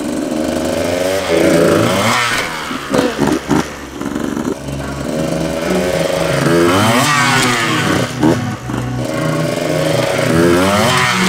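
Dirt bike engine revving up and easing off several times, rising and falling in pitch, as the bike is ridden slowly at a log ramp and up onto it.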